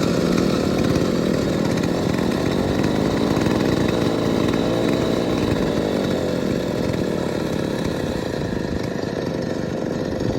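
Chainsaw running steadily at speed, cutting through a palm tree trunk, its engine pitch wavering slightly.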